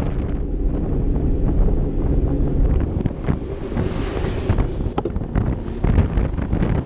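Wind buffeting the microphone of a camera on a moving Vespa LXV 150 scooter, over the low rumble of the scooter and road. A few sharp knocks come through, and a hiss swells and fades about four seconds in.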